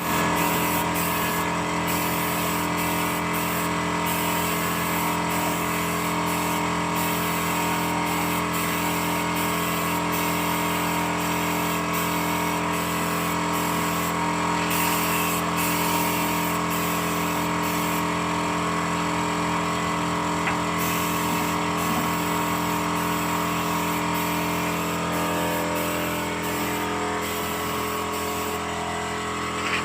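A machine running steadily, a constant hum made of several fixed tones.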